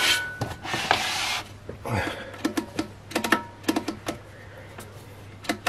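A preamp being handled on a bench: two short rubbing, sliding sounds, then a run of light, irregular clicks and knocks.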